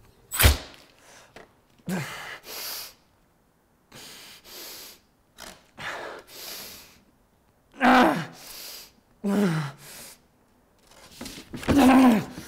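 One hard thump of a hand slammed down onto a paper bag on a wooden table, about half a second in. A man's heavy, ragged breathing follows, then from about eight seconds in several groans that fall in pitch.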